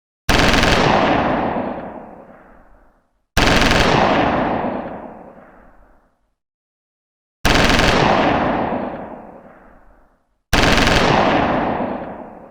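Machine gun firing four separate bursts a few seconds apart. Each starts abruptly and trails off in a long echoing tail.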